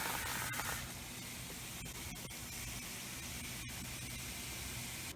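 A steady hiss with a few faint clicks in it, cutting off suddenly at the end.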